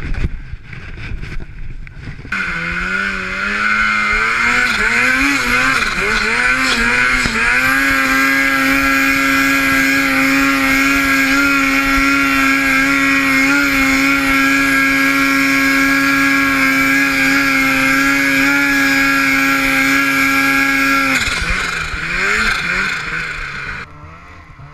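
Snowmobile engine revving up with the pitch wavering as the throttle is worked, then held steady at high revs for about thirteen seconds under load in deep snow, before easing off near the end.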